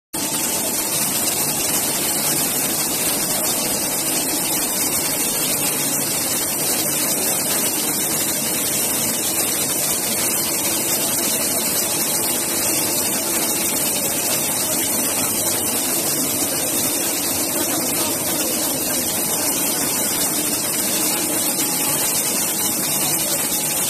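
Two-stage plastic bag pelletizing line running: electric motors and extruder giving a steady, loud hiss and hum that does not change.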